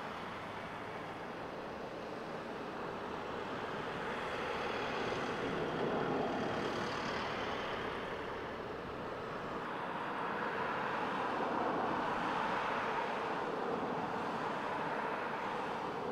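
Steady street background noise, like road traffic, that swells twice as if vehicles are passing.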